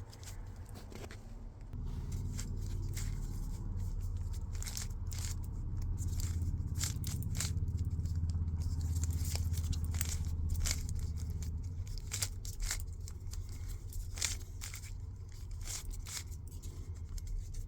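A plastic Rubik's cube being twisted by hand, its layers turning with many short clicks and scrapes. A low steady hum runs underneath for much of the time.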